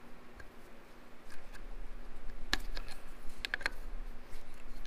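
Scattered small metal clicks and clinks of an adjustable wrench fitting onto and turning a nut on the cover of an antique Kohler generator's diaphragm fuel pump. The sharpest click comes about halfway through, followed a second later by a quick run of three or four clicks, over a faint steady hum.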